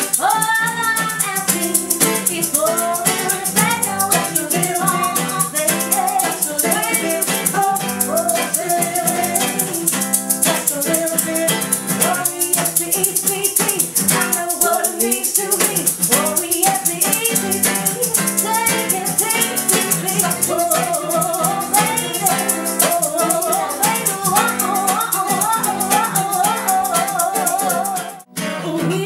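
Acoustic instrumental music: plucked guitar with a fast, steady shaker rhythm and a bending lead melody line. It drops out briefly near the end, then resumes.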